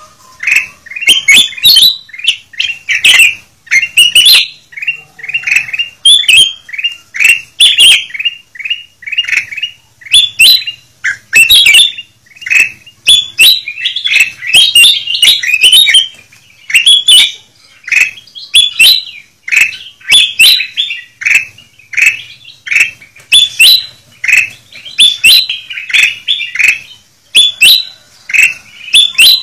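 A noisy chorus of ruby-throated bulbuls (kutilang emas) giving quick, chattering chirps in rapid overlapping series. This is a lure (pikat) recording used to draw wild birds down.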